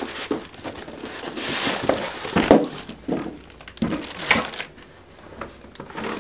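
Plastic bag wrapping crinkling and rustling as a steel CPU holder is pulled out of a cardboard box, with irregular handling noise and a few knocks. The loudest bursts come about halfway through and again a little later.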